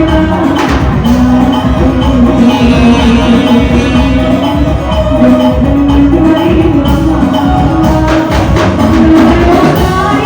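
Loud amplified band music with a steady beat and held melodic notes.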